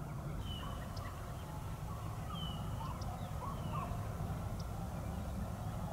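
Distant pack of deer-chasing hounds baying on a chase, heard faintly as a scatter of short calls over a steady low rumble.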